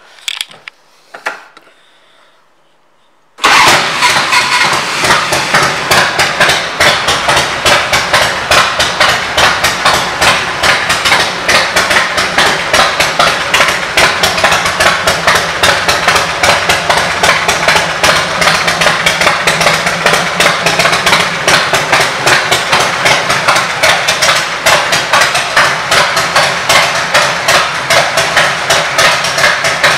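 A few faint clicks, then about three and a half seconds in the 1993 Harley-Davidson Electra Glide's 1340 cc Evolution V-twin comes in suddenly and idles steadily with an even pulsing beat, through fishtail exhaust pipes.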